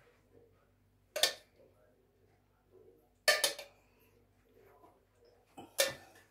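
Metal spoon clinking against a small stainless-steel saucepan and plates as sauce is spooned out: three sharp clinks about two seconds apart.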